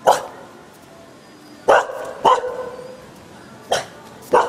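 Dog barking: five short, sharp barks at irregular gaps.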